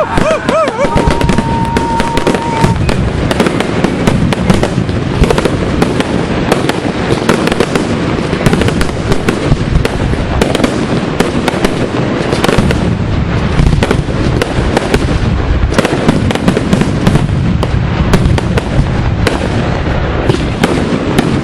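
Fireworks finale: a dense, continuous barrage of shell bursts and crackle, many bangs a second with no let-up. A whistle sounds over the bangs for the first two or three seconds.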